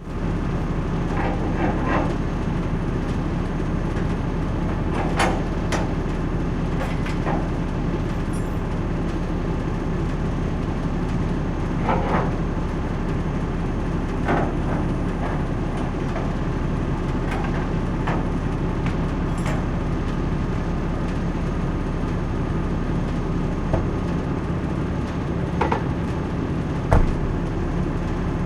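Delivery truck's engine running steadily at a low rumble, with scattered sharp metal clanks and knocks from the container delivery equipment, about a dozen over the stretch.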